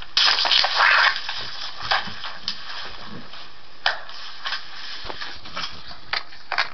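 Handling noise close to the microphone: a loud crinkling, rustling burst about a second long near the start, then scattered light clicks and rubbing as the camera is shifted.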